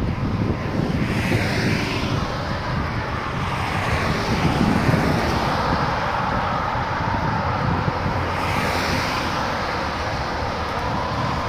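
Wind buffeting the microphone in a low, uneven rumble, over a steady engine drone.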